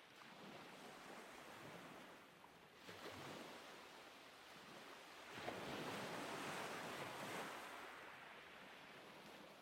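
Faint rushing of wind and surf, swelling louder for a couple of seconds from about five and a half seconds in.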